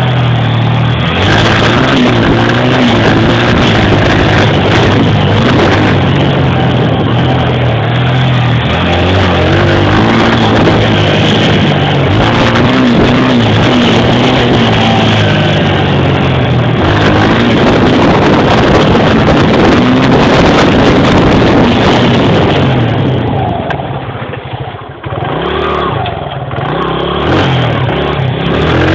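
Honda XR100R dirt bike's single-cylinder four-stroke engine running and revving up and down under riding load, heard close up from the front of the bike. Near the end the engine eases off for a couple of seconds, then picks up again.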